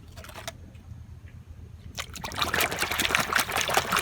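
A couple of light clicks, then about two seconds in, water starts splashing and trickling over plastic toy vehicles being washed.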